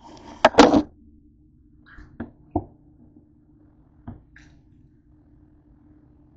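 Rustling handling noise as a camera is picked up and moved, then a few small clicks and soft squirts from a plastic squeeze bottle of yellow mustard being squeezed over a bowl, with a faint steady hum underneath.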